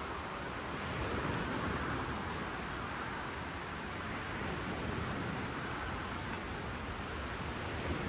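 Waves washing on a lakeshore: a steady rushing noise that swells and eases every few seconds.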